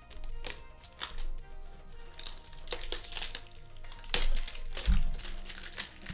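Plastic packaging of a card box crinkling and crackling as it is handled and unwrapped, in a string of sharp crackles, loudest about four seconds in, with a dull bump shortly after. Faint background music plays underneath.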